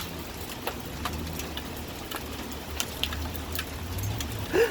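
Hailstorm: a steady patter of hail with many scattered sharp clicks of hailstones striking the street and nearby hard surfaces, over a low steady hum.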